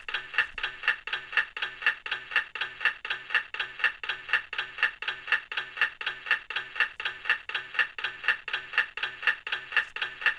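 Recorded clock ticking played through the small speaker of a Soothing Sounds 20 clock radio: even, sharp ticks about two a second.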